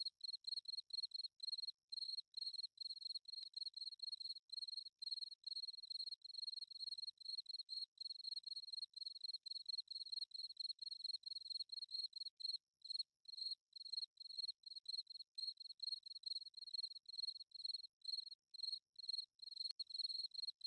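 Crickets chirping at night: a steady run of regular, evenly spaced, high-pitched chirps.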